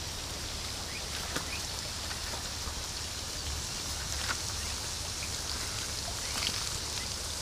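Outdoor rural ambience: a steady high hiss over a low hum, with a few faint scattered ticks and short chirps.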